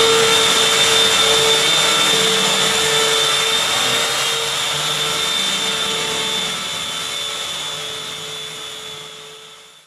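A steady mechanical whir with a held whine, fading out near the end.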